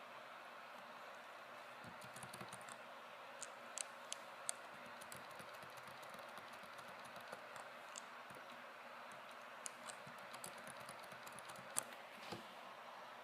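Laptop keyboard keys pressed now and then, a scattering of faint, irregular clicks over a steady hiss.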